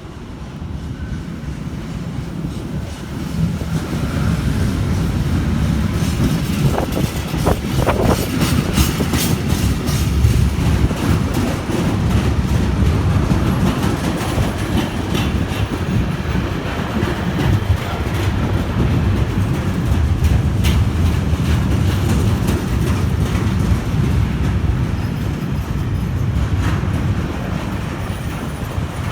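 A train passing close by on the line: a heavy rumble that builds over the first few seconds and then holds steady, with wheels clicking over the rail and brief high squeaks around seven seconds in.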